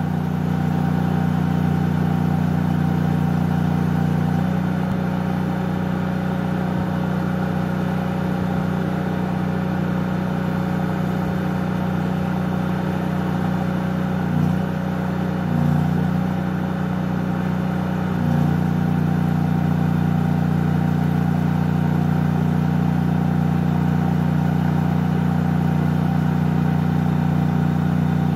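An engine idling steadily, heard from inside a vehicle. From about four to eighteen seconds in a faint higher tone rides over it, and the idle wavers briefly near the end of that stretch.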